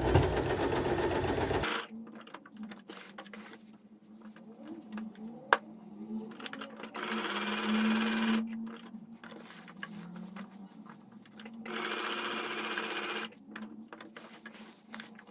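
Electric sewing machine stitching through denim in three short runs of a second or two each, with quieter pauses between, darning a hole in stretch jeans with a stitch set to width and length 3. A single sharp click about five and a half seconds in.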